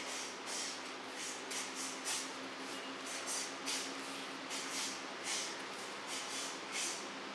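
Karate student performing a kata: a quick series of short hissing swishes, about two a second, from sharp breaths and the uniform moving with each technique.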